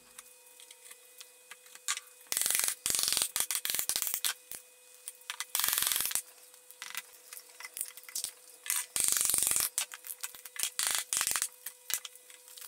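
Wood being rubbed by hand in a series of short rasping strokes, each about half a second long, with scattered light clicks and knocks between them.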